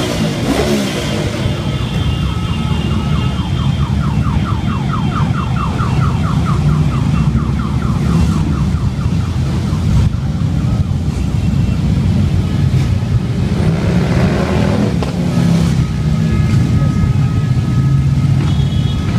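A procession of large cruiser and touring motorcycles passing one after another, their engines a continuous low drone. Horns toot now and then, near the start and again near the end. From about two seconds in, a warbling alarm-like tone repeats several times a second for about six seconds.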